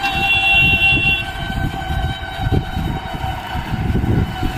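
Train running on the track: a rough, steady low rumble. A high steady tone sounds over it and fades out after about two seconds.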